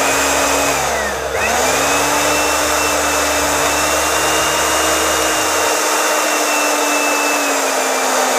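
Philips HR2115 blender's newly fitted replacement motor running on a test, a steady whir. About a second in it briefly winds down and spins back up, and a lower hum under it drops out a little past the middle.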